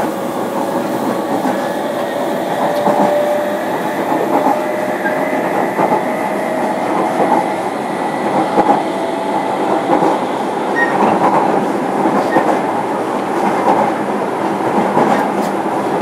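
JR Kyushu 305 series electric train running, heard from inside motor car MoHa 305-106: steady rolling noise of wheels on rail, with a faint, thin, high whine held through it.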